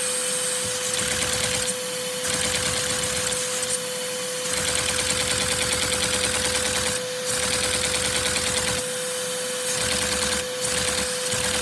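A four-cylinder oscillating LEGO vacuum engine, a flat four, runs with a fast clatter on vacuum suction. About five times it stops briefly and starts again as its output wheel is held and released. Under it runs the steady whine of the vacuum cleaner pulling the suction.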